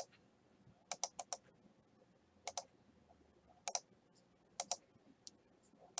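Faint, scattered clicks of a computer mouse and keyboard, coming in small groups of two to four, as a list is selected, copied and pasted into a spreadsheet.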